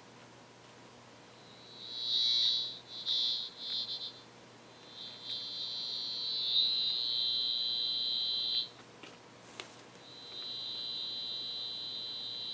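High-pitched electronic buzzing tone from a circuit tracer receiver's audible indicator. It comes in three stretches, the first choppy, the next two steady, and it sounds when the receiver picks up the tracer's injected noise signal on the AC cords.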